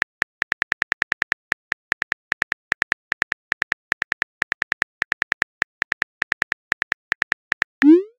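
Smartphone keyboard clicks from letters being typed, a quick, slightly uneven run of short taps several a second. Near the end a short rising tone sounds.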